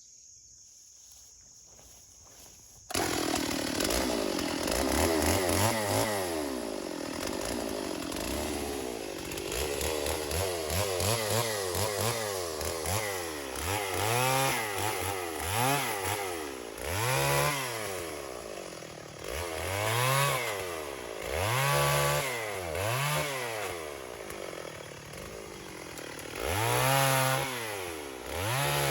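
Stihl 028 AV Super two-stroke chainsaw starting abruptly a few seconds in. It runs at high speed, then repeatedly revs up and sags back down as it cuts into wood, on a freshly square-filed chain.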